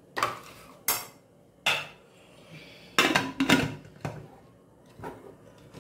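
Aluminium pressure cooker lid being put on and closed: a string of sharp metal clanks and knocks, loudest in a quick cluster about three seconds in.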